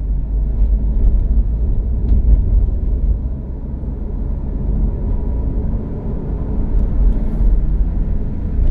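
Steady low rumble of a vehicle driving along a paved road: engine and tyre noise heard from the moving vehicle.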